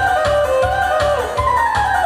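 Upbeat Korean trot-style backing music played over a PA speaker, with a steady bass beat and a reedy melody line that slides down in pitch near the end.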